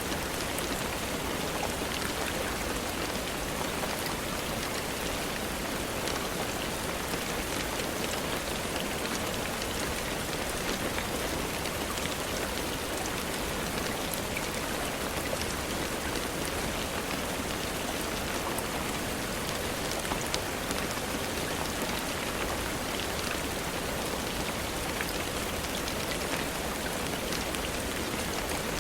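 Steady rain falling, an even hiss with many individual drops pattering on a surface.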